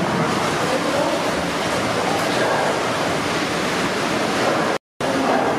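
Steady rushing, hiss-like noise of an 1868 steam beam engine running, its crank and connecting rod turning over, with no distinct knocks. The sound cuts out for a moment near the end.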